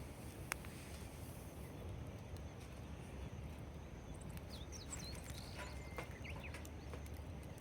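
Campfire crackling, with scattered sharp pops over a steady low rumble. A few short, high bird chirps come about halfway through.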